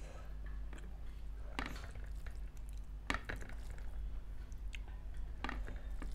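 Close-up eating sounds: chewing and the wet squish of rice being mixed with curry by hand, with three sharp clicks or smacks spaced about a second and a half apart, over a low steady hum.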